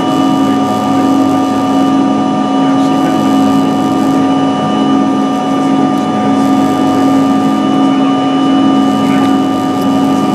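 Steady drone of a CRJ200's rear-mounted GE CF34 turbofan engines heard inside the cabin after takeoff, a constant hum with several steady tones over airflow noise.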